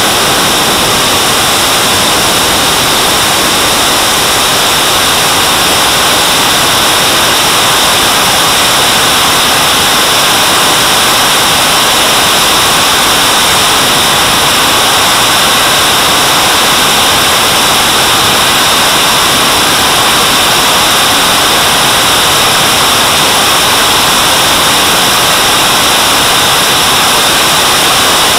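Model jet turbine (JetCat) running steadily in flight, heard from a camera mounted just behind its exhaust nozzle. A loud, continuous rush of exhaust and airflow with a faint steady high whine.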